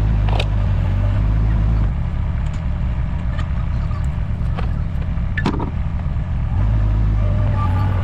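A steady low engine drone that drops away about two seconds in and comes back near the end, with a few sharp knocks.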